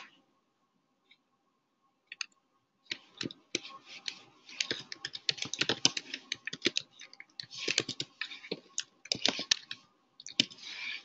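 Typing on a computer keyboard: quick runs of key clicks starting about three seconds in, after a near-silent pause, as a line of code text is entered.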